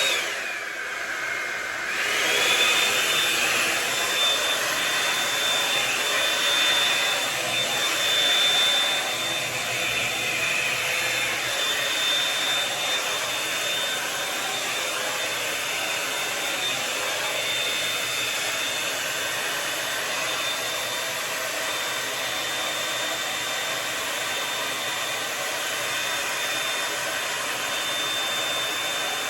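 Revlon One-Step hot-air brush dryer running: a steady rush of air with a high motor whine. Near the start the whine drops in pitch and climbs back within about two seconds, then holds steady.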